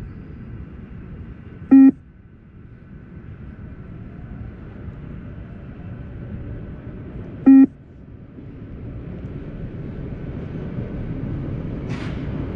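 Two single electronic beeps from a beep-test (20 m multistage fitness test) recording, about six seconds apart, each a short pitched tone marking the end of a shuttle. Their spacing is the level-9 shuttle pace. A steady low background noise runs underneath.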